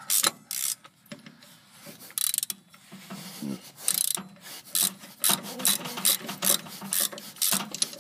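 Socket ratchet clicking in short bursts of quick strokes, running a rusty lower shock-absorber nut off its stud after it has been broken loose. There is a lull between bursts in the first few seconds.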